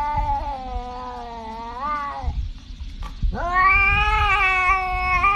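Domestic cat giving two long, drawn-out yowls: the first bends up in pitch and breaks off a little over two seconds in, and the second starts about a second later with a sharp rise, then is held.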